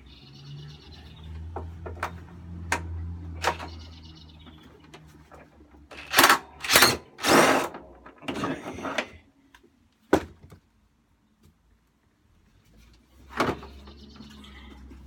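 Metal knocks and scraping clatters as a lawnmower engine is worked loose from its deck, with the loudest clatters about six to nine seconds in; the engine is held back by the drive belt still caught on its pulley. A low steady hum runs through the first four seconds.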